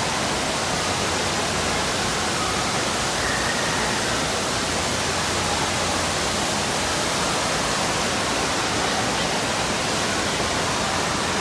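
Steady rushing noise of falling water in an indoor waterpark hall: spray and water pouring from a water-play structure, echoing under a large roof.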